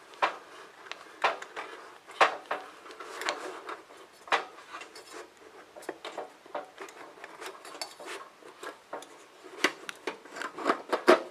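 Metal parts of a Kero World KW-11F kerosene heater's wick adjuster mechanism being handled and fitted back together: scraping and rubbing with sharp clicks and knocks, about one a second at first and coming faster near the end.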